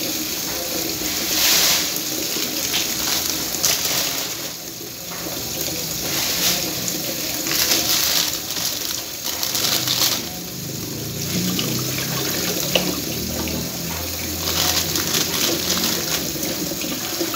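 Kitchen tap running into the sink while grapes are rinsed under it, the water's rush growing louder in stretches.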